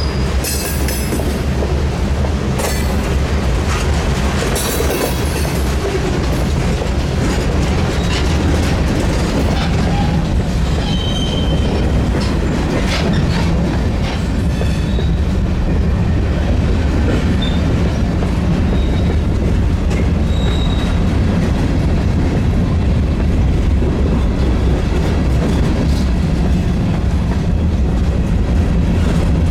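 Freight train rolling past at a crossing: a steady low rumble of the train with wheels clicking over the rail joints, and a few short, high wheel squeals in the first half.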